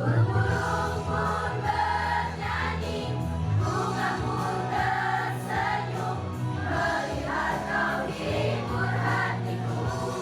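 A choir singing with instrumental accompaniment; a steady low bass line runs under the voices.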